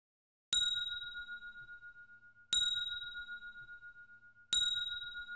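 Countdown timer's end alarm: a bell-like ding struck three times, two seconds apart, each ringing out and fading. It signals that the countdown has reached zero.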